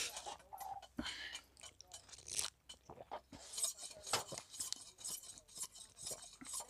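A person sipping and swallowing sugarcane juice from a small plastic cup: slurps and swallows with many small mouth and lip clicks, close to the microphone.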